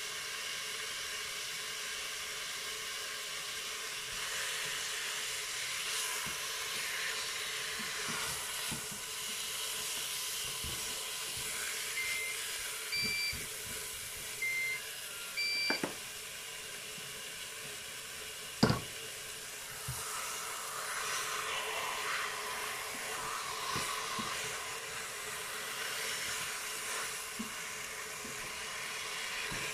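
Chicken pieces sizzling with a steady hiss as they brown in the bowl of a Cookeo multicooker, with tongs clacking against the pot; the loudest is one sharp clack a little before halfway. Short electronic beeps sound in two pairs, between 12 and 16 seconds in.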